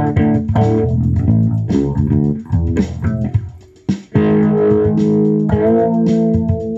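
Solo electric bass guitar played fingerstyle: a quick run of plucked notes, a brief break a little under four seconds in, then several notes sounded together and left ringing.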